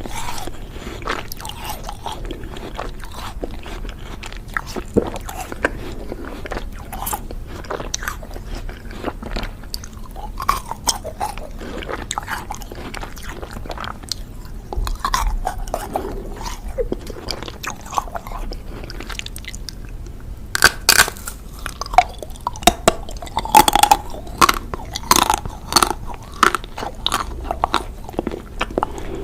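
Close-miked ASMR eating of ice cream: crunchy bites and wet chewing in scattered short crackles, coming thicker and louder about two-thirds of the way through.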